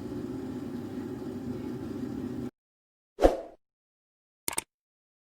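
Steady low background hum that cuts off abruptly into silence, followed by one sudden loud hit and, about a second later, a short click, typical of edited-in outro sound effects.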